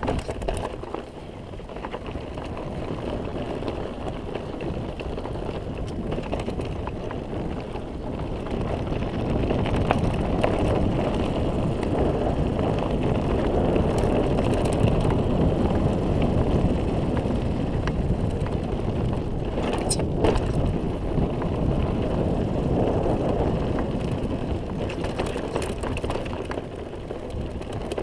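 Mountain bike rolling fast downhill on a dirt and gravel road: tyres crunching over the gravel and the bike rattling, with wind rushing over the camera microphone. It grows louder as speed builds about a third of the way in, with a sharp knock about two-thirds through.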